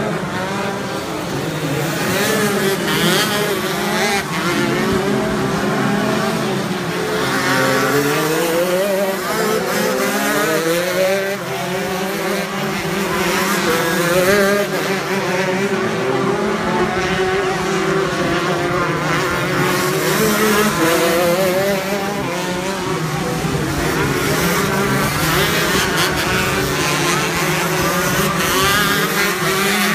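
Several 125cc two-stroke shifter kart engines racing, their pitch repeatedly climbing and dropping as they rev up and shift through the gears.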